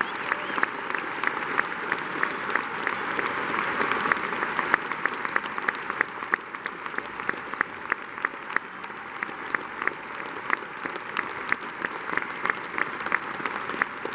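Audience applauding, dense at first and thinning about halfway through to scattered, separate claps.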